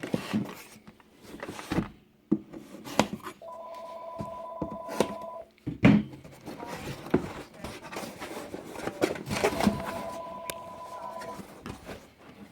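A telephone rings twice, each ring a steady two-tone ring lasting about two seconds, once a few seconds in and again near the end. Between the rings come scattered knocks and clicks from a cardboard box being handled and opened, the loudest a sharp thump about halfway through.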